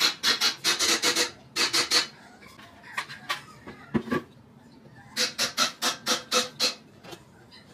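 A spoon scraping thick puppy mush out of a blender jar in two runs of quick strokes, about six a second, the first at the start and the second about five seconds in, with a single knock or two between.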